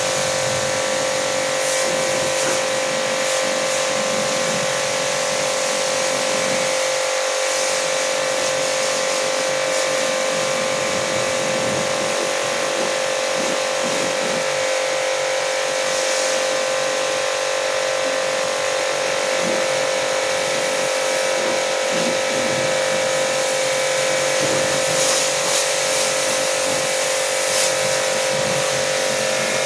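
Agaro Supreme electric pressure washer running steadily: a constant motor whine with a hiss underneath, unchanging throughout.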